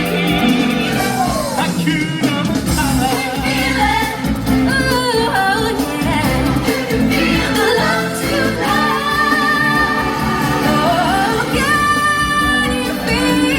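Music with singing: sung notes with vibrato over a full band accompaniment.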